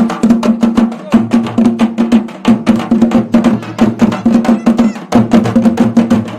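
Music with fast, dense percussion strokes over a steady, repeating low bass line.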